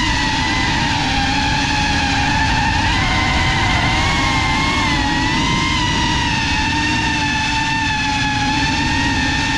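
FPV drone's brushless motors and propellers whining steadily, the pitch wavering slightly up and down, over a low rumble, as heard from the drone's own onboard camera.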